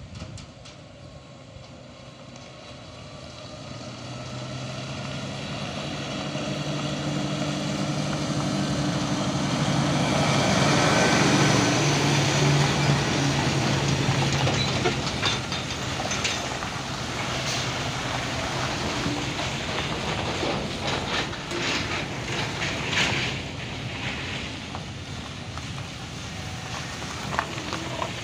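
A diesel cargo truck approaching and passing close by on a loose gravel road. Its engine grows steadily louder to a peak about eleven seconds in, then fades, followed by scattered rattles and clatter from the truck and its tyres on the gravel.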